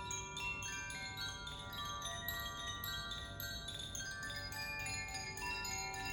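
Hand-held tuned wind chimes of the Koshi and Zaphir kind being swayed so the inner clapper strikes the tuned metal rods: a continuous, irregular stream of bright notes that ring on and overlap into a shimmering chord.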